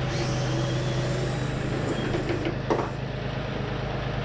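A steady low engine-like hum runs throughout, with a single knock about two and a half seconds in.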